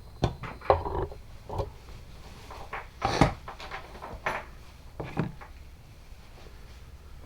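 Hand tools and metal engine parts being handled during engine reassembly: a series of irregular clicks and knocks, the loudest a short clatter about three seconds in.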